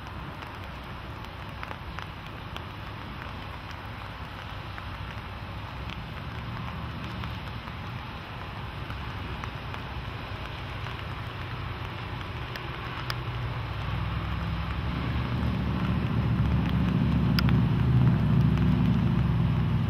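Flash flood front rushing down a dry sandy riverbed, a steady hiss of moving water. From about two-thirds of the way in, a low rumble of a truck on the road bridge builds and becomes the loudest sound near the end.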